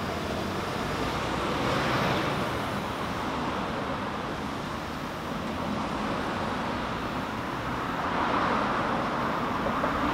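Street traffic: cars and taxis passing close by, a steady hum of engines and tyres that swells as a vehicle goes past, about two seconds in and again near the end.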